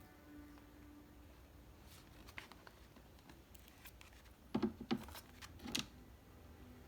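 A few short scratchy sounds of dry dirt being scraped and scooped, in a loose cluster about halfway through, against a quiet background.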